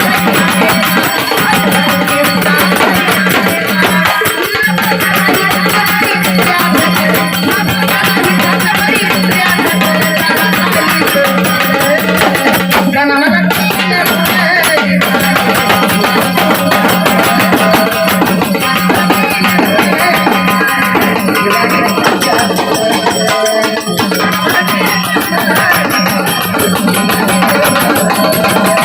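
Marathi folk music playing loudly, with hand drums keeping a steady rhythm under a sustained melody line and no singing.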